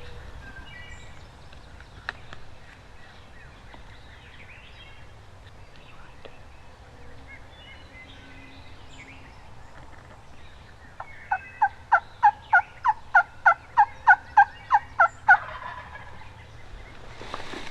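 Wild turkey yelping: a loud run of about fourteen evenly spaced, sharp notes lasting about four seconds, starting past the middle.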